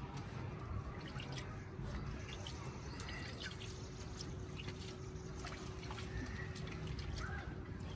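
Small drips and light splashing of water in a steel bowl as hands work a wet mixture in it, with scattered soft clicks.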